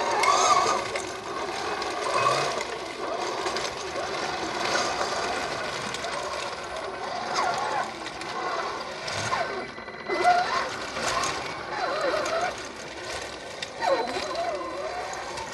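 Traxxas Summit 1/8 scale RC truck on Mattracks tracks, its electric motor and geared drivetrain whining, the pitch rising and falling again and again with the throttle as it crawls over rock.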